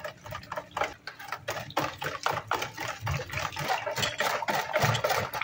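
A utensil stirring a large batch of yogurt, water and salt for cacık: quick, irregular clicking and scraping against the bowl, several strokes a second.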